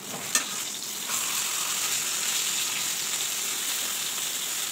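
Turmeric-coated whole fish frying in hot oil in a kadai, a steady sizzle. A sharp knock about a third of a second in as a metal spatula turns the fish, after which the sizzle gets louder.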